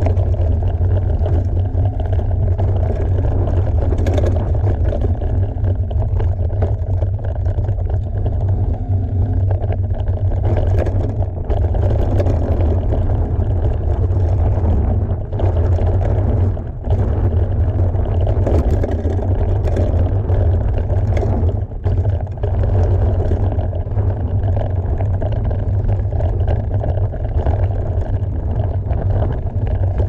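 Mountain bike rolling fast down a dirt trail: loud, steady wind rush on the camera microphone over the rumble and rattle of the tyres and bike, dipping briefly twice.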